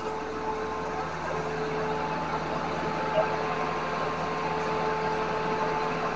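Fire engine's motor and water pump running steadily, a constant mechanical hum, with the pump engaged to feed charged hoses.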